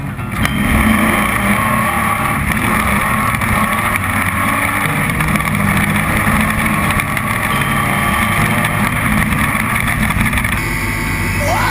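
Off-road race truck's engine running hard at speed, heard from on board; it gets louder about half a second in, then holds steady.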